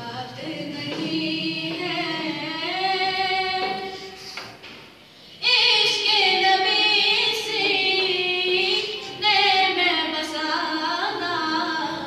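A naat sung by a solo voice without accompaniment, in long held notes that waver and glide in pitch. The voice breaks off about four seconds in, comes back louder about a second later, and pauses briefly once more near the end.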